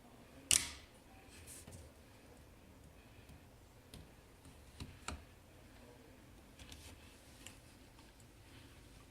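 Scattered clicks and light knocks of tools and parts being handled, the loudest about half a second in and a pair of sharp clicks about five seconds in.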